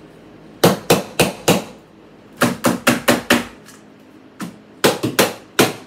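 A hammer knocking against a wall in three quick runs of blows, four in the first and five in each of the next two.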